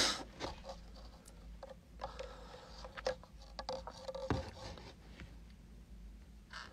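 Quiet room with a few faint scattered clicks and scrapes, one slightly louder knock a little past the middle.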